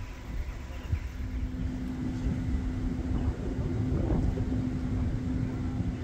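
Railway locomotive running with a steady hum over a low rumble, slowly growing louder.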